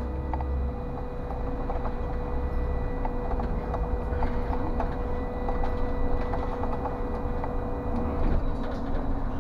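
City bus driving along a street, heard from the driver's cab: engine rumble and road noise, with a steady whine that stops near the end and scattered small rattles.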